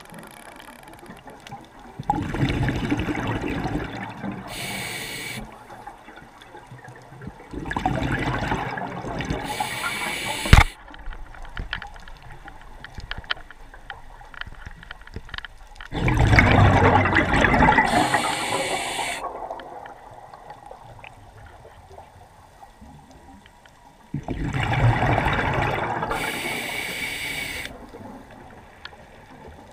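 Scuba diver breathing through a regulator underwater: four breaths several seconds apart, each a rush of exhaled bubbles followed by a short hiss of inhaled air. A single sharp click comes about ten seconds in.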